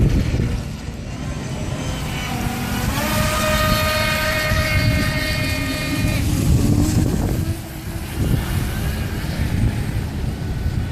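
Brushless electric motor of a radio-controlled speedboat whining at speed. The pitch climbs for about a second, holds steady for about three seconds, then fades away, over a steady low rushing noise.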